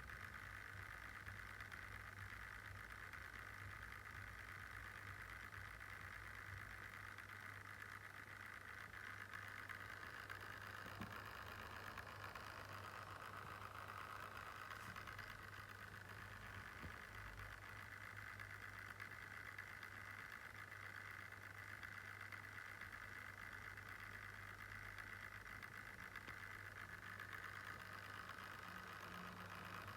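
Lenovo Yoga Slim 7 laptop's cooling fan running at idle: a faint, steady whirring hiss with a low hum underneath. The owner takes this idle fan noise to sound faulty.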